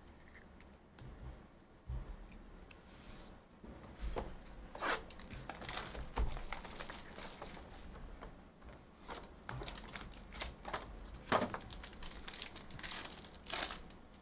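A trading-card hobby box being opened and its wrapped card packs handled. The cardboard and pack wrappers crinkle and tear in a string of short bursts from about four seconds in.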